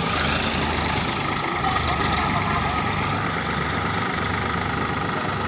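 Sonalika tractor diesel engine running steadily at a low, even speed.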